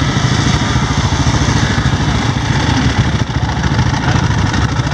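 Dirt bike engine idling steadily, with a rapid, even firing beat.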